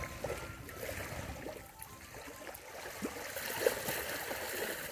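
Lake water lapping and trickling against a shoreline rock in small, irregular splashes.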